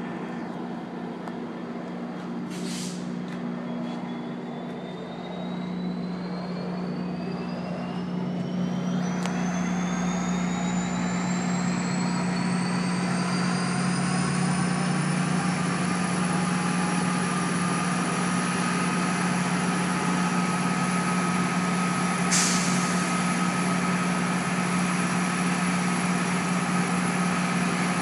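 Diesel locomotive engine throttling up: a steady low hum with a high whine that rises over about ten seconds and then holds steady as the sound grows louder. Two short hisses of air, a few seconds in and again near the end.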